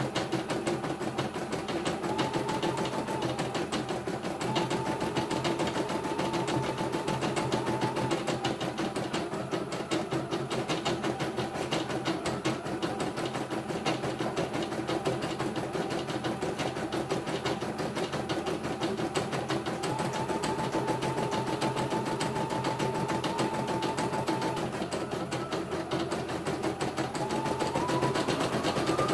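CNY E900 computerized embroidery machine stitching, a fast, even run of needle strokes. A thin whining tone above it shifts in pitch and rises near the end.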